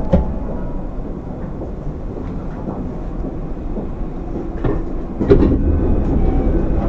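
Steady rumble and hum of a JR West 205-series electric train standing at a station platform, with a sharp clunk just after the start and another about five seconds in.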